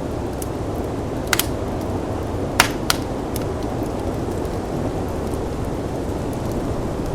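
Steady low rush of snowstorm wind with a wood fire crackling over it: a few sharp pops, the loudest a pair about two and a half to three seconds in.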